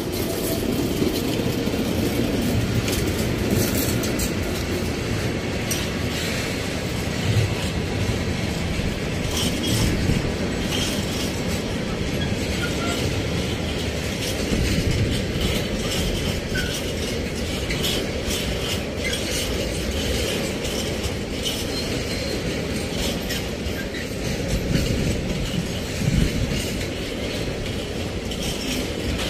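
Freight train of tank wagons rolling past at close range: a steady rumble of wheels on rails with repeated clicks and clatter from the wagon wheels.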